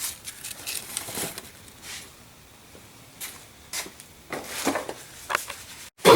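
Scattered light clicks and knocks of tools and parts being handled at the engine, spaced a second or so apart.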